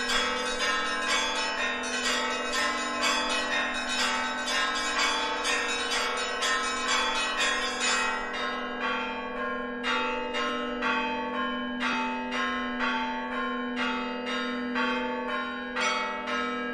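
Russian Orthodox church bells ringing in an even, repeating pattern, about two strikes a second, over the steady hum of a larger bell.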